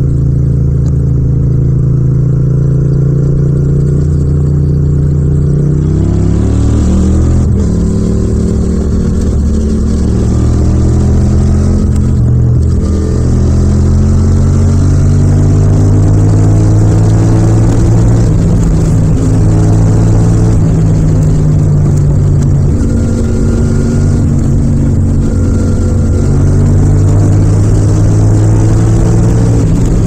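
Yamaha MT-07 (FZ-07) 689 cc parallel-twin engine and exhaust under way at speed. It pulls harder with its pitch rising in steps, with breaks about 6 and 12 seconds in as it shifts up, then holds a steady high-speed cruise.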